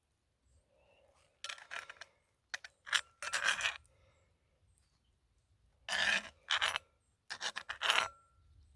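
A spoon scraping and clinking against a cast-iron Dutch oven as chilli is scooped out, in four short bouts, some with a brief metallic ring.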